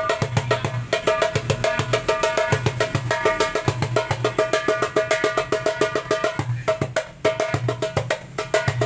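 A 9-inch darbuka with a Remo plastic (mika) head played by hand in a fast, dense rhythm: many sharp, ringing strokes a second, with deep bass strokes coming back every half second or so.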